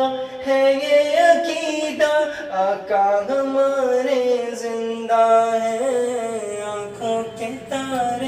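Male voice singing a naat with no instruments, drawing out long melodic notes that bend in pitch, over a steady vocal drone.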